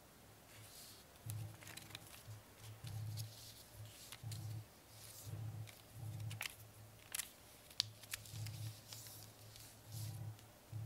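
A square of origami paper being folded and creased by hand: crisp rustling and crinkling with sharp clicks as the folds are pressed, and dull low thuds from the hands on the table.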